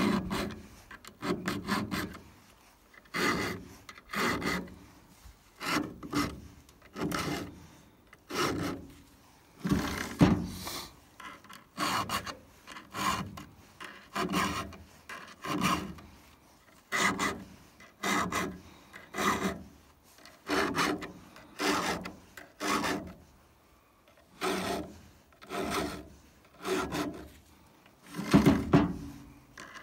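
Round chainsaw file rasping across the cutting teeth of a Stihl saw chain in steady, even strokes about once a second: the chain being hand-sharpened.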